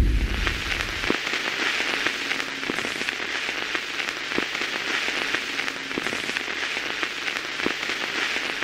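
Steady crackling hiss like falling rain, even in level throughout; a low rumble dies away in the first second.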